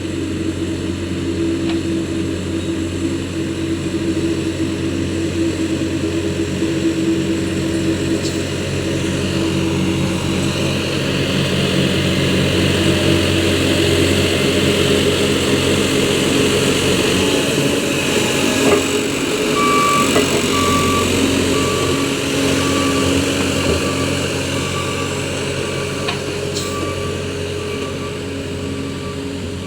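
Heavy road-construction machine's engine running steadily, growing louder toward the middle and easing off again. About two-thirds of the way through a reversing alarm starts beeping about once a second.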